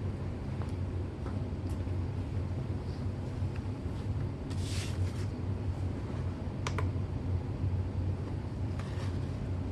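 Steady low hum under light handling sounds on a wooden test board: a brief rustle of paper about halfway through, then two sharp clicks as a small digital scale is switched on.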